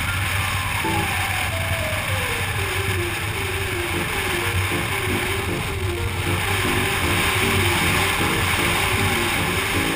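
BMW R1200GS boxer-twin motorcycle cruising at a steady speed, with steady engine and wind noise and background music laid over it.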